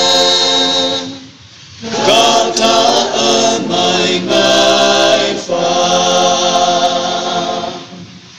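A group of voices singing together unaccompanied. The singing breaks off just after a second in, starts again about two seconds in, and fades away near the end.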